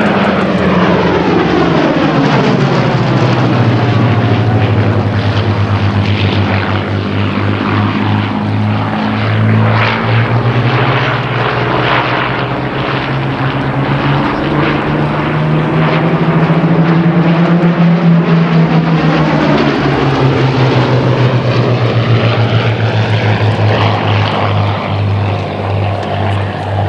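Two Hawker Hurricane Mk I fighters' Rolls-Royce Merlin V12 piston engines running loud as the pair flies its display, the engine note sliding down and back up in pitch several times as they pass and turn.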